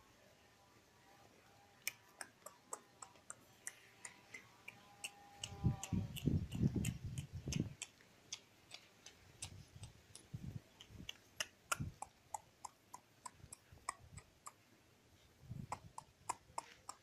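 A dog's claws clicking on a ceramic tile floor, a run of light sharp clicks two or three a second as it shifts about, with a faint whine early on and a louder low rustling stretch near the middle.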